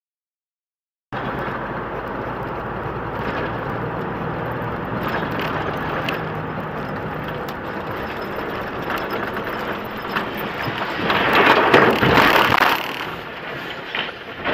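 About a second of silence, then the in-cab sound of a truck driving on a snowy road: its engine running under steady road noise. About ten seconds in comes a loud, rushing crunch lasting about two seconds as the truck runs off the road into the snowbank, then a short knock.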